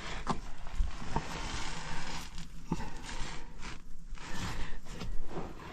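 Shoes scuffing and scraping on rock with clothing rustling as someone climbs down a rock chimney, with a few short knocks.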